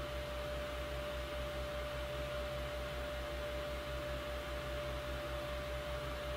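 Steady low electrical hum and hiss with a thin, steady whine held at one pitch: background noise of the recording, with no other sound.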